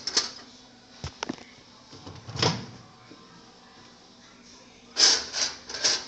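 Knocks and clunks of a bowl being set into a microwave and the microwave door being handled: sharp clicks at the start and about a second in, a duller thump about two and a half seconds in, and a quick cluster of bumps near the end.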